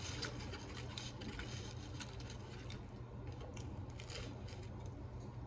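Soft, scattered crackling and rustling of food and its paper wrapping being handled by hand, over a steady low hum.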